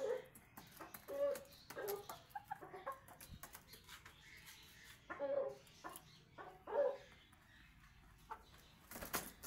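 Domestic chickens clucking: short low clucks come in ones and pairs every second or so, with faint clicks between them and a brief scuffing burst near the end.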